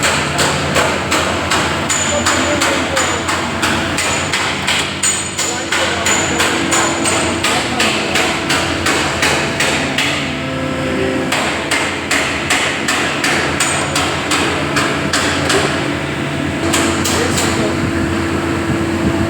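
Hammer blows on car-body sheet metal, struck over and over at about three a second with a metallic ring, pausing briefly about halfway through, over a steady hum.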